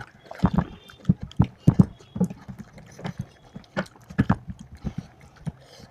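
Close-up eating sounds: irregular soft knocks and wet mouth smacks of chewing, two or three a second.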